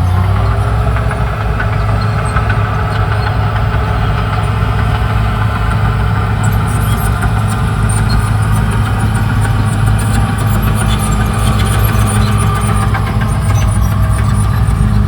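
CAT D6R XL bulldozer's diesel engine running steadily under work, with scattered clanks and rattles coming in about halfway through.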